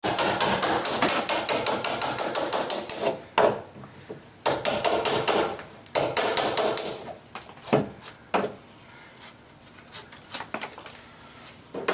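Rapid repeated knocking of a tool striking wood, about seven blows a second, in runs of a few seconds, as a pocket is chiselled into wooden floor framing. A few single, louder knocks follow, and fainter scattered ones near the end.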